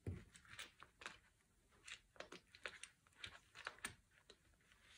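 Faint, irregular rustling and light clicking of a clear plastic zip cash envelope holding notes and coins as it is handled and fitted onto the metal rings of a ring-binder organiser.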